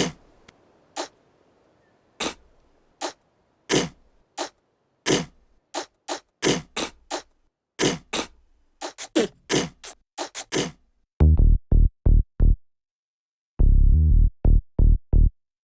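Electronic cartoon music on a drum machine: short, separate percussive hits that come closer and closer together, then about eleven seconds in a run of loud, deep bass pulses that breaks off briefly and starts again.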